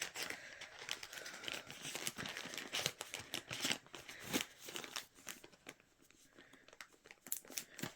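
Plastic bag crinkling and rustling in short, irregular crackles as small craft tools are pushed back into it, thinning out for a couple of seconds near the end.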